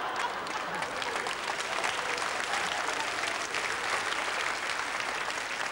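Theatre audience applauding: dense, steady clapping that holds at an even level throughout.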